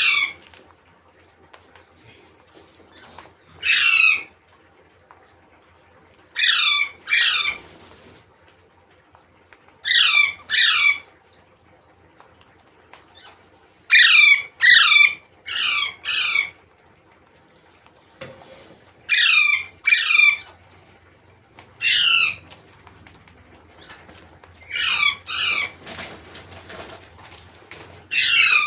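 Parrot giving loud, harsh screeching calls in groups of one to four, every few seconds.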